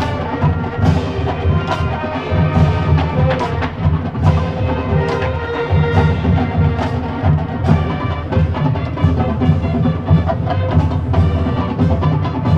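Marching band playing: sustained pitched chords under sharp, repeated drum and percussion hits.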